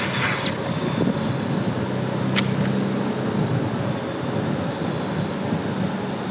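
Cast with a baitcasting rod and reel: a brief whoosh at the start as the rod swings and line pays off the spool, then a single sharp click about two seconds in. A steady low rumble runs underneath.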